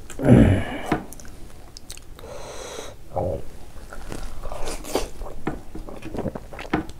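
Close-up mouth sounds of a man eating buckwheat dhido by hand: biting, then chewing with repeated wet smacks and clicks. A loud throaty sound comes right at the start.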